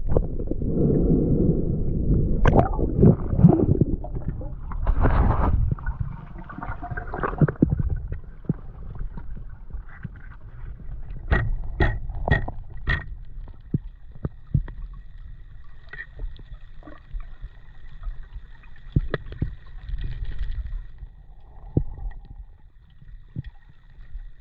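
Underwater sound on a spearfisher's camera: water rushing and gurgling against the housing for the first several seconds, then quieter, with scattered sharp clicks and knocks and a faint steady high tone in the background.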